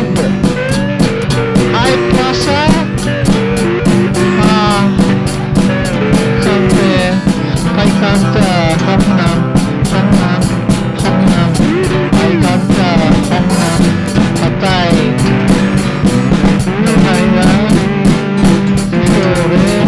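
Indie pop song with electric guitar and a drum kit keeping a steady, fast beat over a sustained low bass line, with bending melodic lines on top.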